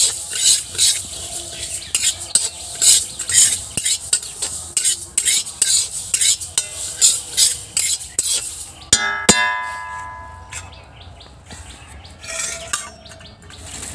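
Metal spatula scraping and stirring moong dal around a black wok as it dry-roasts, in quick strokes about two a second. About nine seconds in a single ringing metallic clang sounds and the stirring stops.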